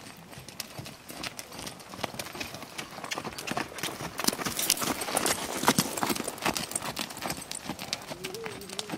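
Ridden horse's hoofbeats on a sandy arena, a quick irregular drumming that grows louder as the horse passes close by midway and fades as it moves away.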